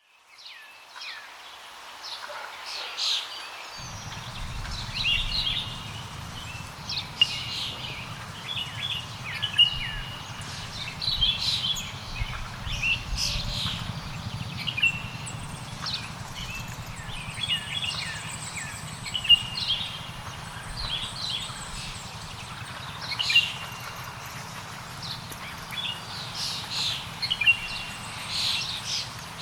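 Several forest birds chirping, with many short, high chirps and whistled notes overlapping throughout. A steady low rumble comes in about four seconds in.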